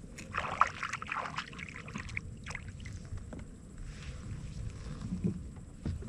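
Handling noises aboard a fishing kayak: a rustling, clattering burst in the first second or so, then scattered light clicks and a couple of low thumps against the hull near the end.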